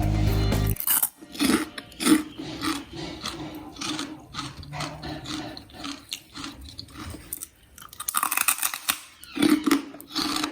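Crispy chicharon (fried pork crackling) being bitten and chewed close to the microphone: irregular crunches, with a louder run of them near the end. Background music cuts off about a second in.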